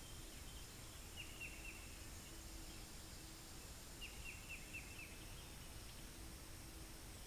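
Faint outdoor quiet with a bird giving two quick runs of short falling chirps, four or five notes each, over a faint low hum.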